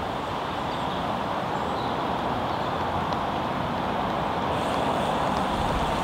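Steady roar of distant road traffic, an even rush of tyre noise that grows slightly louder towards the end.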